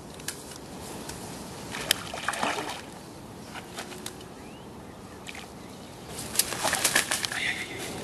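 A small pike splashing and thrashing as it is brought to a landing net and netted. There are two bursts of quick splashes and flapping, one about two seconds in and a longer one from about six to seven and a half seconds in.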